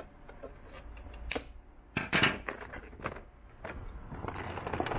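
Kitchen shears snipping the red twist ties that hold a toy blaster in its box: a few sharp clicks, the loudest about two seconds in, then a rustling noise from about three and a half seconds in.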